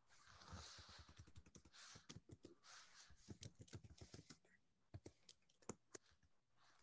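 Faint, rapid clicking of typing on a computer keyboard, with a few sharper key strikes after about five seconds.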